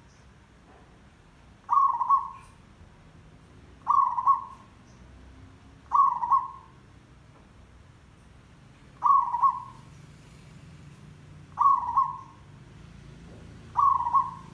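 Zebra dove (merbok, perkutut) cooing: six short calls, each a brief burst of quick notes, coming every two to three seconds.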